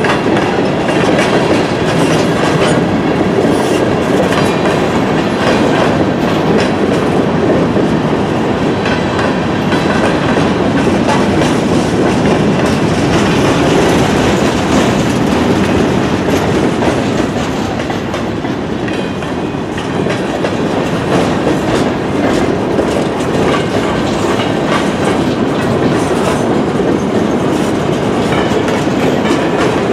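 Freight cars of a long freight train rolling past close by: tank cars, boxcars and a centerbeam flatcar. A loud, steady rumble with the rapid clicking of wheels over the rail joints.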